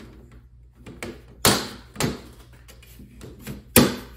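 Plastic wood-grain floorboard panels of a toy wrestling ring being set down and clipped into the ring frame: three sharp clacks, about a second and a half in, half a second later, and the loudest near the end.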